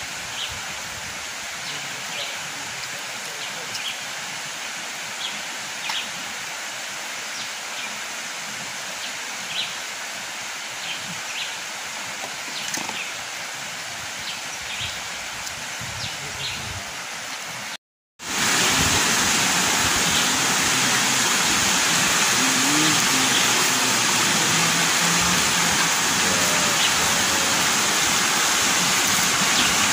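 Steady rushing of river water, with scattered faint clicks in the first part. After a brief dropout about two-thirds of the way through, the water noise comes back louder and fuller.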